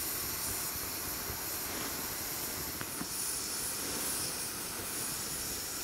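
Wood fire burning with a steady hiss, and a couple of faint crackles about three seconds in.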